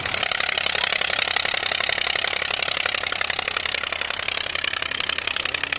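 Deperdussin monoplane's three-cylinder Anzani engine running at full power, a loud, rapid, rattling beat as the aircraft lifts off and flies low past.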